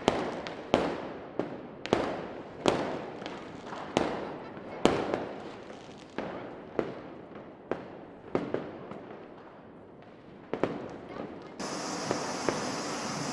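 Fireworks going off, a sharp bang roughly every second, each trailing off in an echo; the bangs thin out about ten seconds in. Near the end a steadier crackling with small pops takes over.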